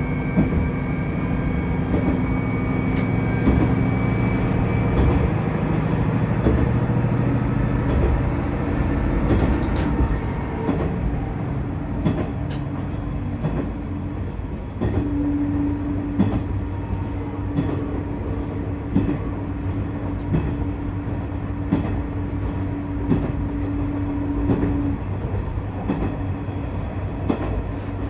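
Tosa Kuroshio Railway 8000 series diesel railcar running along the line, heard from on board: a steady diesel drone with wheels clicking over rail joints now and then. The engine note changes about halfway through.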